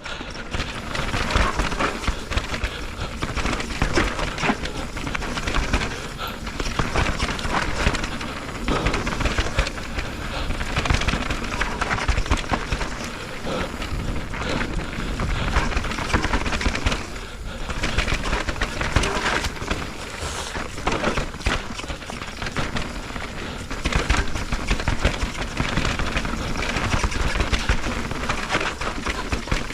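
Orbea Rise e-mountain bike descending a rough trail: a continuous rattle of rapid knocks and clatter as the bike runs over roots and rocks, with rushing tyre and air noise.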